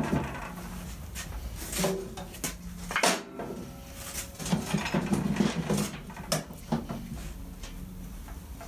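Harley-Davidson Sportster frame being worked off its engine by hand: scattered metal knocks, clicks and scrapes at irregular intervals.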